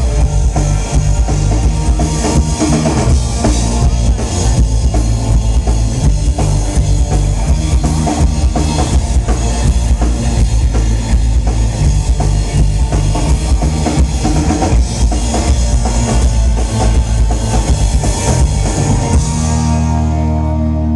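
Live rock band rehearsing on an outdoor stage, drum kit with kick and snare prominent over bass and keyboard. About a second before the end the drums stop and a held chord rings on.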